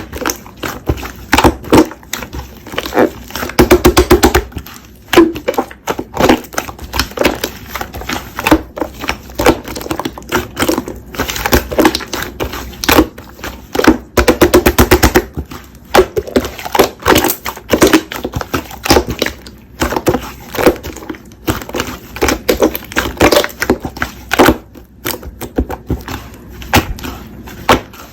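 Slime being squeezed, stretched and poked by hand, making rapid sticky clicks and crackling pops in bursts, with the densest clusters about four seconds in and around the middle.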